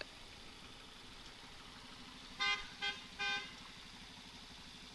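A vehicle horn tooting three times in quick succession, about two and a half seconds in, the last toot a little longer, over the steady low hum of an engine.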